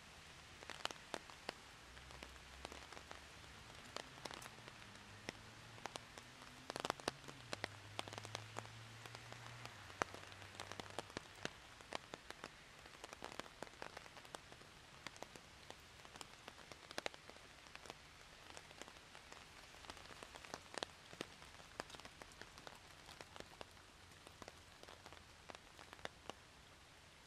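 Rain falling steadily, with many irregular sharp drops tapping close by. A faint low hum is under the first ten seconds or so, then fades out.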